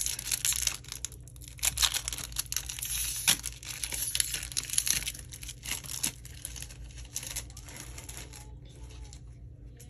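Foil Pokémon booster pack wrapper crinkling and tearing as it is opened by hand, with a dense run of crackles that dies away after about six seconds.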